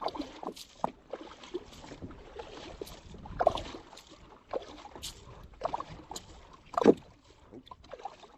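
Irregular splashes and sloshes of water being scooped by hand out of a water-filled canoe, the loudest a little before the end.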